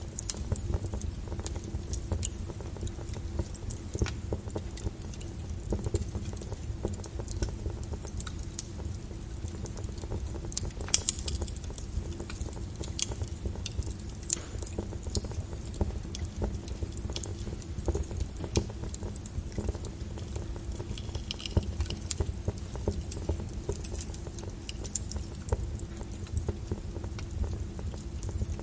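Brown noise with a crackling fire layered over it: a steady low rumble with irregular snaps and pops, the sharpest about eleven seconds in.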